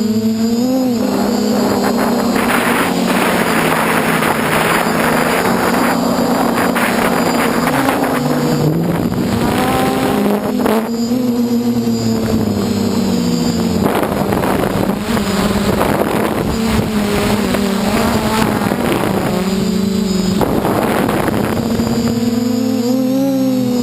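DJI F450 quadcopter's four brushless motors and 8-inch propellers whining in flight, heard from the camera on the frame. The pitch rises and falls as the throttle changes, with gusts of wind buffeting the microphone.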